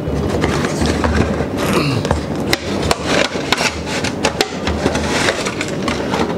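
Cardboard product box being opened and its plastic inner tray slid out and handled on a tabletop: rustling and scraping packaging with many sharp clicks and knocks.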